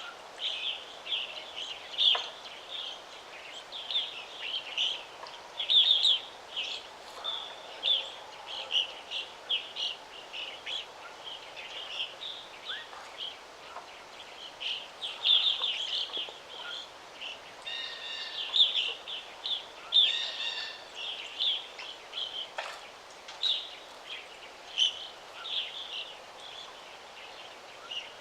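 Several birds singing and chirping, a near-continuous stream of short high chirps with a few louder, busier phrases about two-thirds of the way through, over a faint steady background hiss.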